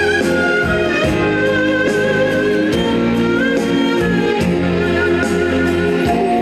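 Live trot band music with a steady beat under a sustained lead melody that wavers with vibrato.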